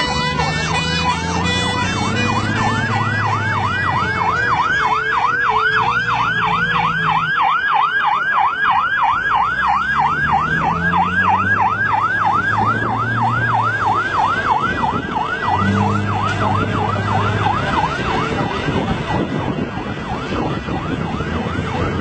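Emergency vehicle siren in a rapid yelp, rising and falling about three times a second, fading out near the end, with a lower droning tone coming and going underneath.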